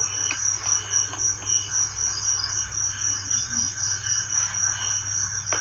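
Crickets trilling steadily in a high, rapidly pulsing chorus, with fainter lower calls beneath.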